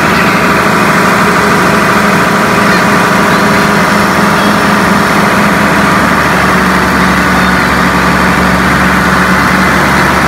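Tractor engine running loudly and steadily, holding its front-end loader bucket raised.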